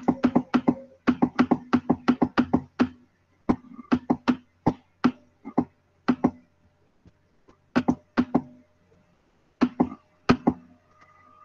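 Rapid runs of sharp clicks at a computer, several a second, the densest in the first three seconds, then shorter runs with pauses between, as a document is paged quickly on screen.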